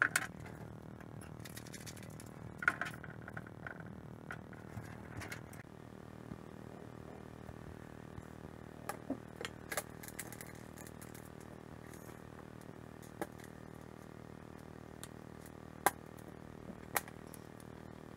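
Small metal parts and hand tools being handled on a workbench: scattered clicks and clinks, with a few sharper single clicks near the end, over a steady low hum.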